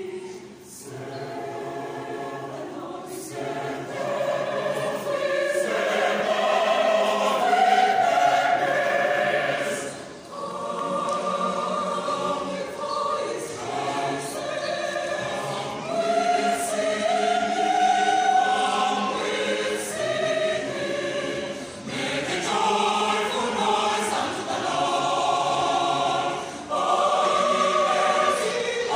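Large mixed choir of women's and men's voices singing a church set piece in parts, in long phrases with short breaks about ten and twenty-two seconds in.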